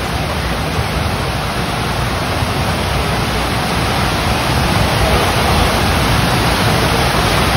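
Steady, loud rush of water pumped up the sloped surface of a sheet-wave surf simulator, an even roar with no breaks.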